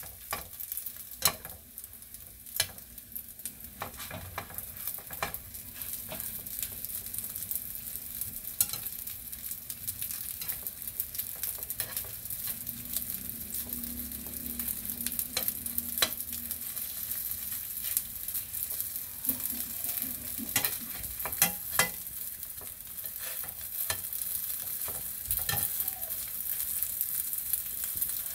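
Coated squid strips sizzling as they fry in a nonstick frying pan, with a steady high hiss. Metal tongs turning the pieces give scattered sharp clicks and taps against the pan.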